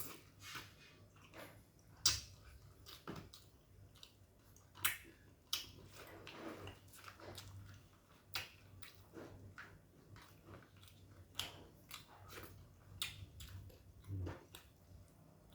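A person chewing food close to the microphone, with irregular wet mouth clicks and smacks as they eat a nasi padang meal of rice and side dishes.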